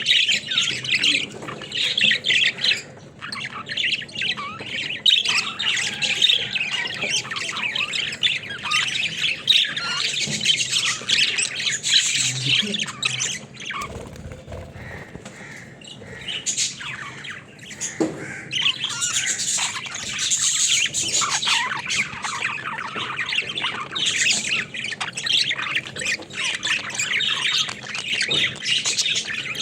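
Budgies (budgerigars) chattering: a dense, continuous stream of quick high-pitched warbles and chirps, easing off briefly about halfway through before picking up again.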